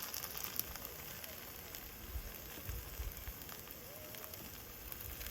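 Oil sizzling and crackling steadily in a pan as a potato pancake made from hash-brown potatoes fries.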